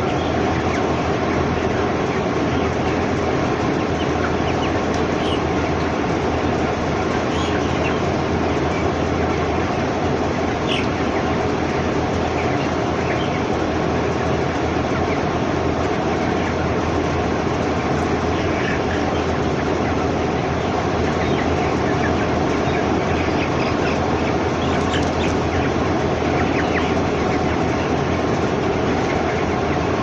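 Steady drone of a controlled broiler shed's ventilation fans, with scattered short cheeps from the 22-day-old broiler chickens dotted over it.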